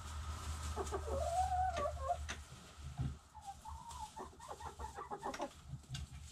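Domestic hens clucking: a drawn-out, wavering call about a second in, then a quick run of short clucks, with a few sharp clicks between. A low rumble sits under the first couple of seconds.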